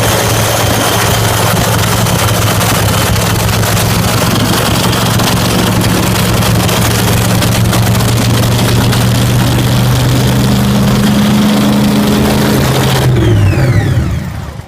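Top Alcohol Funny Car drag-racing engine, freshly rebuilt, running loud and steady at a fast idle. Its pitch steps up a little a few seconds before the end, then the engine is shut off near the end and its note falls away.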